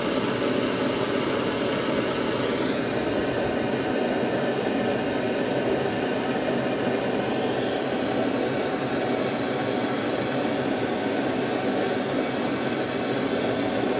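Blowtorch flame burning steadily with an unchanging rushing hiss.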